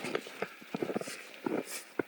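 A hiker's footsteps in deep snow under a heavy pack, about two steps a second, with hard breathing at high altitude.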